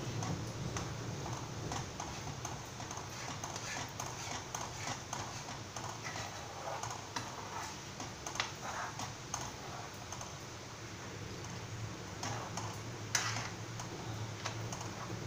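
Metal slotted spoon stirring a runny egg mixture in a kadhai, scraping and tapping against the pan in irregular clicks, with a sharper knock about thirteen seconds in. A low steady hum runs underneath.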